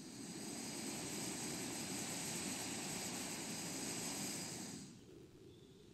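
Fire Maple Blade 2 titanium remote-canister gas stove's burner hissing as the valve is opened up to a big flame. It dies down about four and a half seconds in as the valve is turned back down low, to a simmer.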